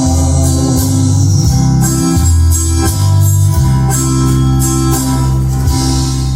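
Instrumental music with a strong, changing bass line under higher sustained notes, cutting off suddenly at the end.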